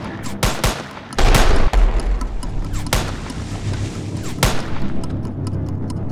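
Gunfire in a film battle scene: repeated shots and volleys with a heavy boom about a second in, over a music score.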